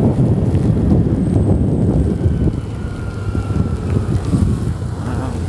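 Strong wind buffeting the microphone of a camera on a moving motorcycle, a loud, steady rushing over the noise of the bike and the road; it eases slightly about halfway through.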